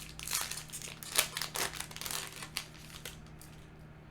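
Foil booster pack wrapper crinkling and tearing as it is ripped open, a quick run of crackles that stops about three seconds in.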